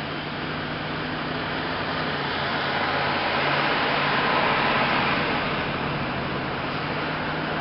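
Truck driving at highway speed, heard from inside the cab: a steady engine drone under tyre and wind noise. The rush swells about halfway through and then eases back.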